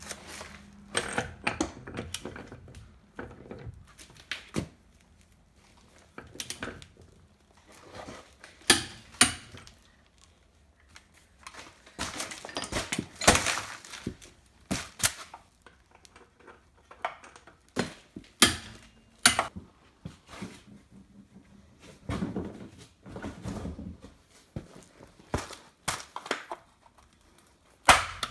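Irregular clanks, knocks and clatter of hand tools and metal car parts being handled during brake and wheel reassembly, in short clusters with quiet gaps between.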